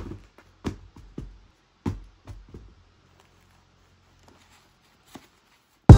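Hands handling a cardboard shoebox and the shoe inside: about six short knocks and scuffs in the first three seconds over a faint low hum. Music with a beat comes in right at the end.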